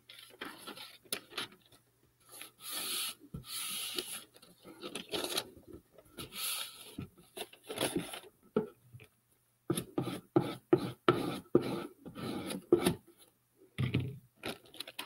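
Hands handling a sheet of decoupage paper, rustling, then rubbing and smoothing it down onto a cardboard box in a quick run of short strokes in the second half.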